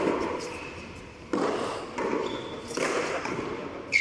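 A tennis ball in a hand-ball frontón rally: four sharp knocks of the ball struck by hand and hitting the concrete wall and floor, echoing in a large covered court, with a short high squeak near the end.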